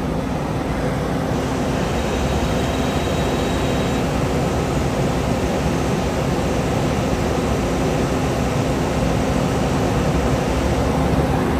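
Steady drone of heavy diesel trucks idling, with a constant low hum under an even rush of noise.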